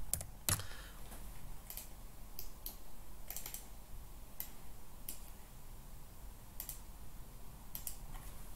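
Computer keyboard and mouse in use: scattered, irregular keystrokes and clicks, the sharpest about half a second in and a short flurry a little after three seconds.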